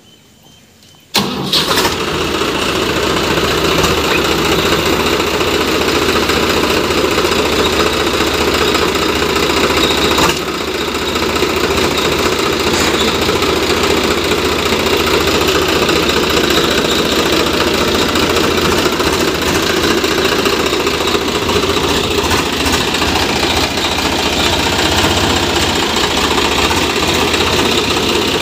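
Swaraj 744 FE tractor's three-cylinder diesel engine starting about a second in, then running steadily, with a single clunk about ten seconds in.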